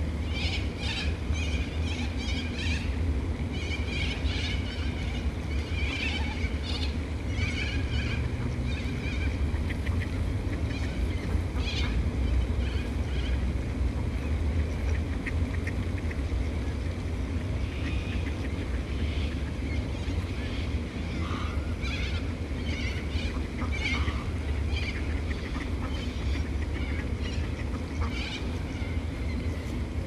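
Waterbirds at a feeding spot calling in short, repeated calls, many in the first ten seconds and more again in the second half, over a steady low rumble.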